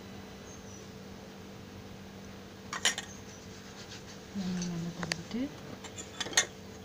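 Kitchen utensils clinking: a sharp double clink about three seconds in, a single click about five seconds in, and another pair near the end. A steady low hum runs underneath.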